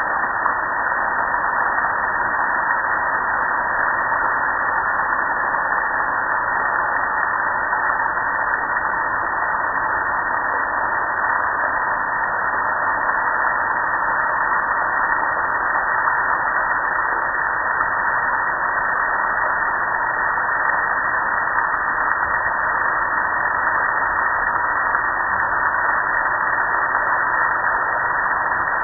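Steady hiss of a water spray drenching a gas grill, with water running off its lid and panel.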